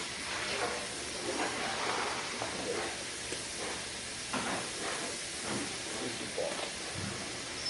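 Steam hissing steadily from two hot irons resting on a damp towel on the carpet, with faint, short, scattered sounds over it.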